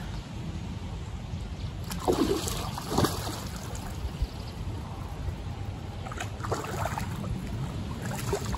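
A hooked carp splashing and thrashing at the surface of the lake, with sharper splashes about two and three seconds in and again later, over a steady low rumble.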